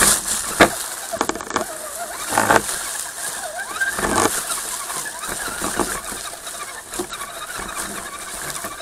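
Redcat Gen7 RC crawler driving over rough trail, with a few sharp knocks as it jolts over rocks, the loudest about half a second and four seconds in, over a steady rumble and a wavering whine.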